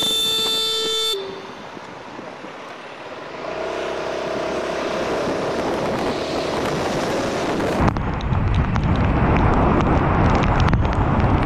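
A motorcycle horn blasts for about a second at a jaywalker and dips slightly in pitch just before it cuts off. Quieter street and traffic noise follows. About eight seconds in, louder steady wind and wet-road noise from a moving motorcycle takes over.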